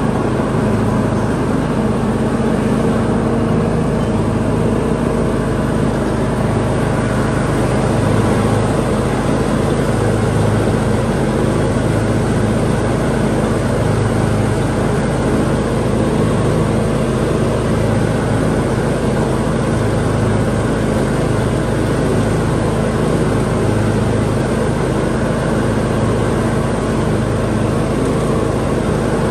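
John Deere X320 lawn tractor's engine running steadily while the tractor drives along, a constant hum.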